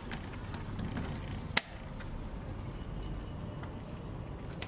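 A single sharp click about a second and a half in, with a few faint ticks over a low steady rumble.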